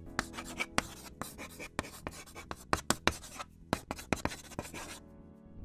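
Chalk writing on a blackboard: a quick run of scratchy strokes and taps that stops about five seconds in.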